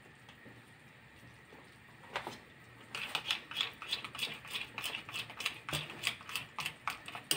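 Metal spoon stirring a thick chocolate filling in a ceramic bowl set over a saucepan, clicking and scraping against the bowl in quick repeated strokes, about three or four a second, from about three seconds in. Before that it is quiet apart from a single knock about two seconds in.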